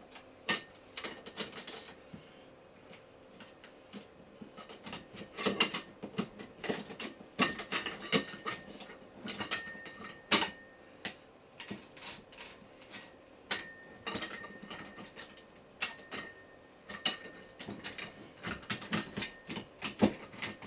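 Irregular metallic clicks, knocks and clanks, a few with a brief ringing tone, as a short piece of mast is handled and fitted into the top of an antenna rotator.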